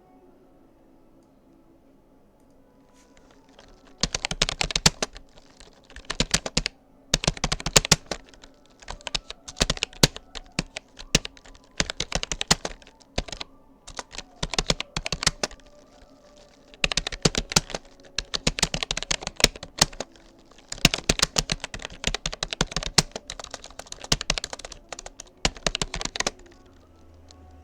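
Typing on a Rapoo computer keyboard: quick runs of keystroke clicks with short pauses between, starting about four seconds in and stopping shortly before the end.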